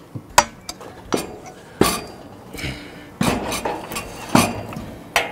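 Several sharp metal clanks and knocks, some ringing briefly, as a steel wheel-kit axle tube is handled and slid into the receiver on a steel cattle chute's frame.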